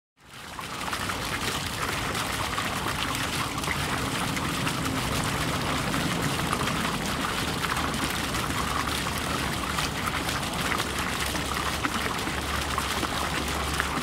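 Water running steadily in an aquarium, fading in over the first second.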